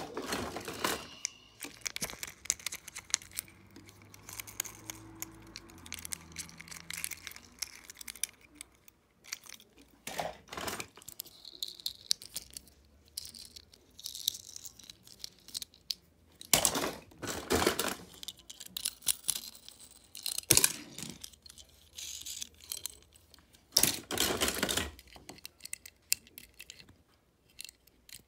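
Small die-cast toy cars clattering and clinking against one another and the sides of a clear plastic storage bin as a hand rummages through them, in irregular clicks with a few louder bursts of rattling.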